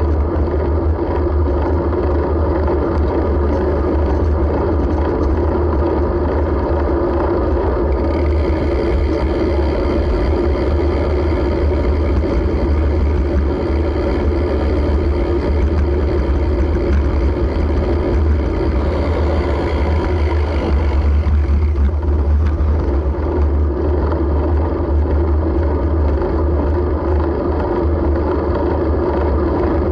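Steady low rumble of road noise and vehicle body resonance heard while riding, picked up by an action camera's built-in microphone. It holds level throughout, with no camera noise of its own.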